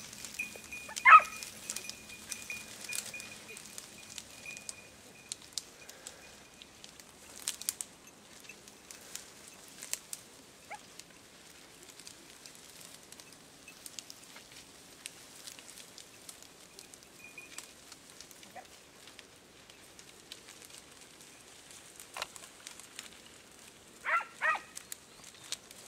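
Andalusian podencos yelping in the brush as they chase a flushed rabbit: one sharp yelp about a second in and two more close together near the end, with twigs and brush crackling in between.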